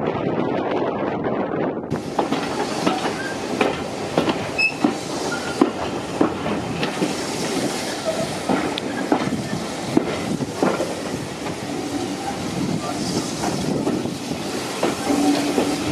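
Heritage railway carriage running along standard-gauge track, a steady rumble of wheels on rail with repeated sharp clicks over the rail joints and a short whine near the end. The first two seconds are wind noise before the carriage sound begins.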